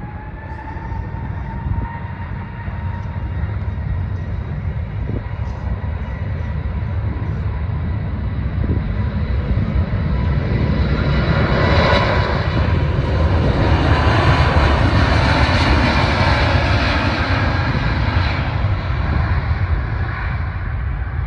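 Airbus A320-family twin-jet airliner on its takeoff roll. The engines' whine rises as they spool up to takeoff thrust, then the jet roar grows as the plane accelerates past, loudest a little past the middle and easing slightly near the end.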